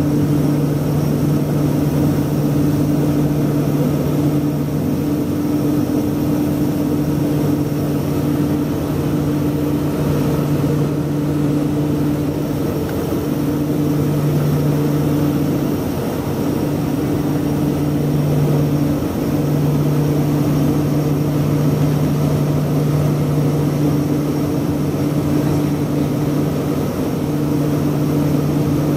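LET L-410UVP-E's twin Walter M601E turboprops and propellers at steady cruise, heard inside the cabin: a loud, steady drone with a low propeller hum that wavers slightly now and then.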